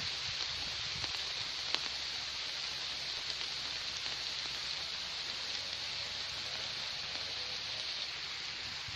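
Steady rainfall, an even hiss with no let-up, with one sharp click about two seconds in.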